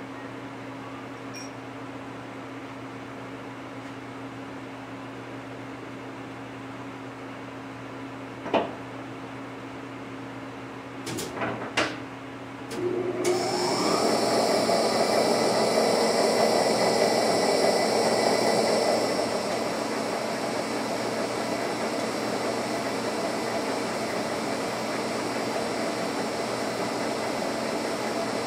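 A steady electrical hum with a sharp click and a few knocks, then a machine's electric motor starts about thirteen seconds in, rising in pitch, and keeps running loudly, settling a little quieter some six seconds later.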